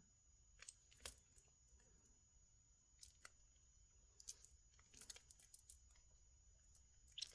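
Near silence with faint, scattered small clicks of a beaded bracelet being handled.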